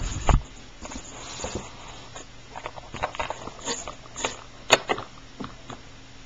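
Scattered light clicks and taps of small plastic toy figures being handled and set down, with a louder knock just after the start and a sharp click a little before the five-second mark.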